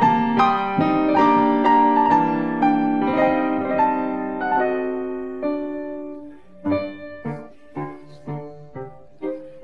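Instrumental music led by piano: ringing chords that slowly fade away by about six seconds in, then a quieter run of short struck notes.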